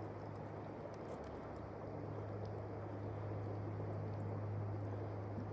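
Steady rush of flowing river water, with a steady low hum underneath.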